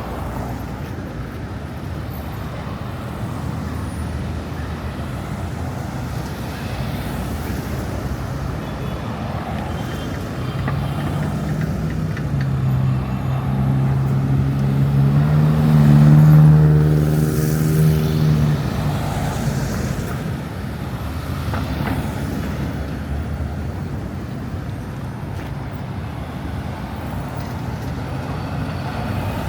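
City street traffic noise, with one vehicle's engine hum passing close: it grows louder over several seconds, peaks about two-thirds of the way through, then fades back into the traffic.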